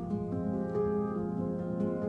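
Soft background music: plucked notes over held, sustained tones.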